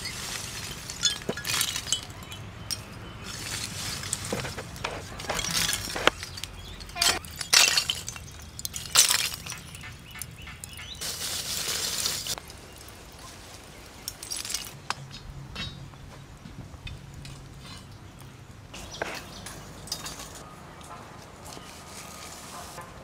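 Lumps of charcoal clinking and clattering against each other as they are piled by hand onto a fire and stirred with a stick, in irregular bursts that thin out after about fifteen seconds.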